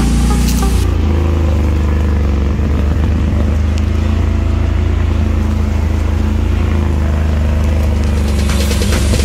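Off-road buggy engine running at a steady, even speed while the buggy crawls along a rough forest track, heard close up.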